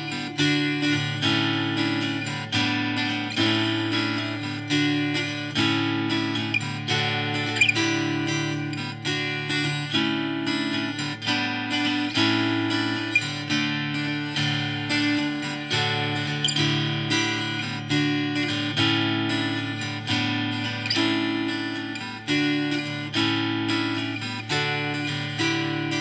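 Background music: acoustic guitar playing chords, plucked and strummed with a steady beat.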